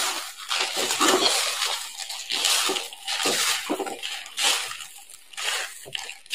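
Crisp freshly fried gram-flour bhujia being crumbled and stirred by hand on newspaper, then tipped from a plate. It gives a run of dry crunching rustles with paper crinkling, the crunch of sev fried crisp.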